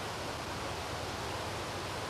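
River water pouring over a low weir and through its sluice gates: a steady, even rush of water.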